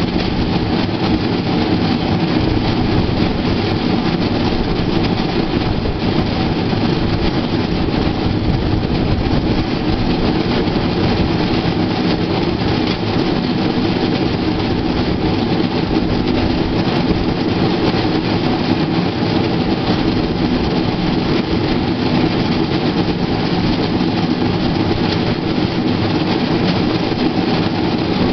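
Play-Team rail bike's steel wheels rolling along the rails, a loud steady rolling noise with no breaks.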